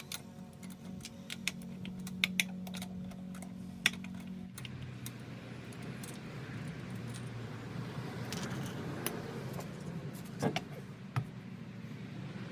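Small stones being picked out of a tyre's tread: scattered light clicks and ticks, irregular, over a low steady hum.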